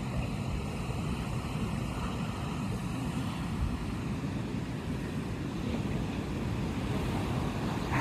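Ocean surf breaking and washing up a sandy beach, a steady low rumble of waves, with wind buffeting the microphone.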